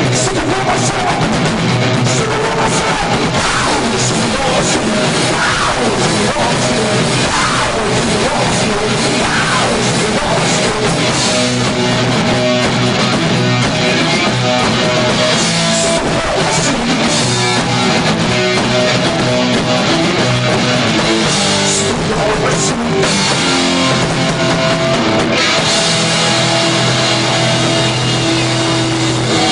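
Live rock band playing loud and without a break on electric guitar and drum kit, with held guitar notes and cymbal hits over the beat.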